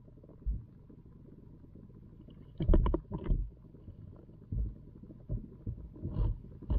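Muffled knocks and thuds heard underwater through a submerged camera as rocks are added to a backyard pond, with a cluster of sharper knocks about three seconds in and single thuds before and after. A low steady rumble runs between them.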